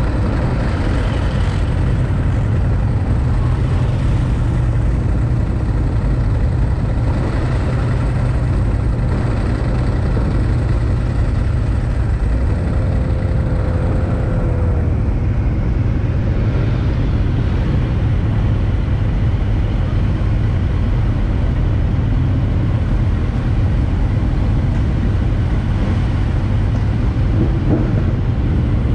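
Kawasaki ZX-9R's inline-four engine idling steadily in a dense low rumble, with other motorcycles idling around it.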